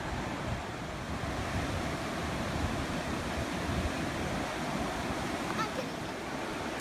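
Wind buffeting the microphone: a steady low rushing noise that flutters unevenly.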